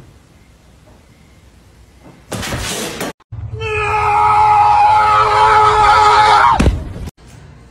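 Cat hissing in a short noisy burst, then, after a brief gap, a loud long yowl held on one steady pitch for about three seconds that cuts off abruptly.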